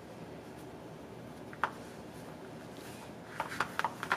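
Handling noise of a fleece strip being knotted onto a plastic suction-cup bath mat: a single light click about one and a half seconds in, then a quick run of clicks and taps near the end as the plastic mat is picked up.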